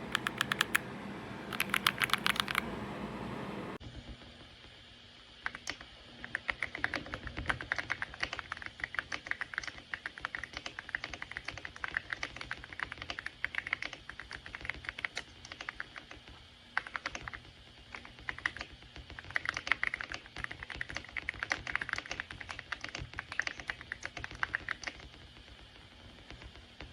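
Typing on an EPOMAKER x Aula F99 mechanical keyboard with Graywood V3 switches: quick, dense keystroke clacks in long runs. A background hiss drops away about four seconds in.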